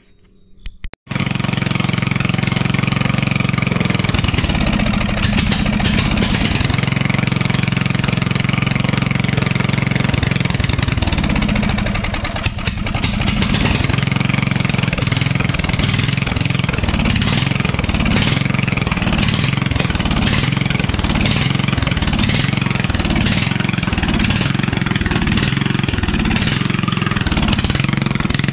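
Briggs & Stratton engine of a garden tractor running at about quarter throttle through a short straight pipe, loud and steady. It comes in suddenly about a second in and sags briefly about halfway through. The owner thinks a plugged old fuel filter is starving it of fuel.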